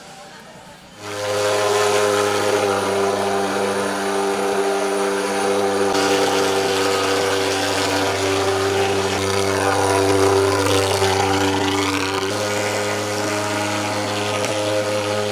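Engine-driven insecticide fogging machine running with a steady, loud drone that starts suddenly about a second in and holds an even pitch.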